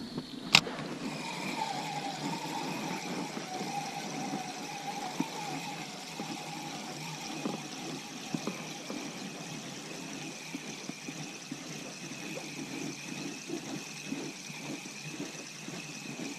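Spinning reel: a sharp click of the bail snapping shut about half a second in, then the steady whir of the reel's gears as the handle is cranked to retrieve the lure. The whir wavers slightly and keeps going, with light knocks in the background.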